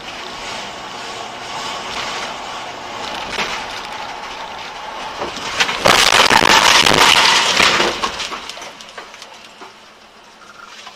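Car driving with steady road noise, then about six seconds in a loud crash of debris pelting the windshield and hood, lasting about two seconds before dying away.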